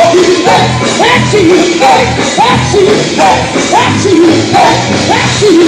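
Gospel group singing with a band, over a steady driving beat of about two pulses a second.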